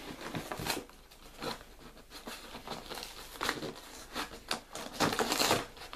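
Cardboard LEGO box being opened by hand: fingers scraping and tapping along the box end and prying at the flap, with scattered small clicks and a louder stretch of scraping and rustling about five seconds in.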